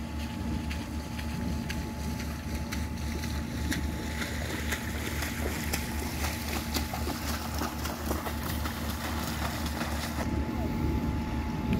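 Steady rushing, hissing water noise over a low, even engine hum, with many scattered sharp ticks. The hiss thins out about ten seconds in, while the hum carries on.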